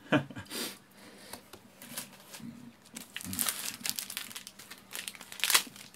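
Plastic snack wrapper crinkling as it is handled, in irregular rustles that get busier from about three seconds in, with one sharper crackle near the end.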